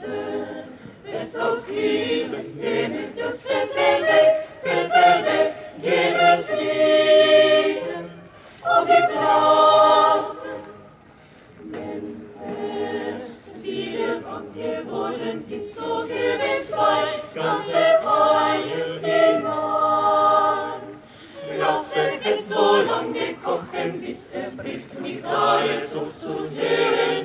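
Mixed choir of women's and men's voices singing a cappella in several parts, in phrases broken by brief pauses about eleven and twenty-one seconds in.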